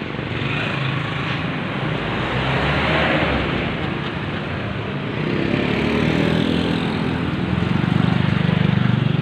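Street traffic noise: a steady wash of road sound, with a motor vehicle's engine drawing close and running loudest near the end.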